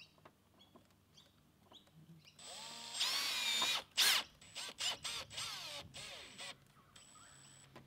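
Power drill driving a self-tapping screw: after a quiet start it runs for about a second with its pitch rising, gives one sharp knock about four seconds in, then several short trigger bursts whose pitch drops as the screw seats.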